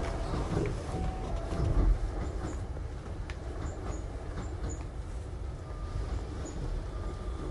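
Hankyu 9000 series electric train heard from inside the car while running: a steady low rumble of wheels on rail, with occasional knocks over rail joints and a few faint high squeaks from the wheels.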